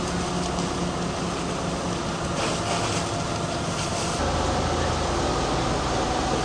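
Steady engine drone with a rushing hiss from running fire-apparatus pumps and a hose stream of water. The tone shifts and grows a little louder about four seconds in.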